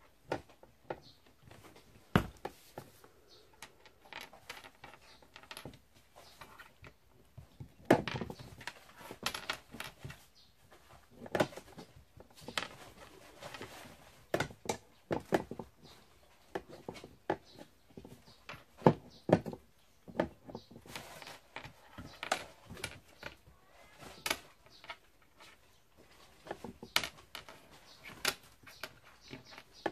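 A kitten scuffling on a hard floor as it pounces on and bats a mole, making scattered, irregular sharp knocks, taps and scrapes.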